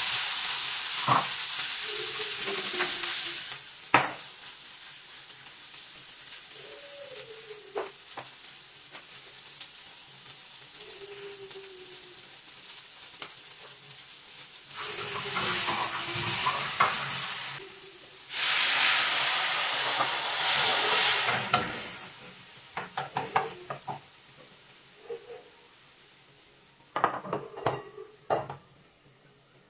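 Sliced okra sizzling in oil in a frying pan as it is stirred with a wooden spoon, with knocks of the spoon against the pan. The sizzle fades through the first half, swells loudly twice around the middle, then dies away, with a few spoon clicks near the end.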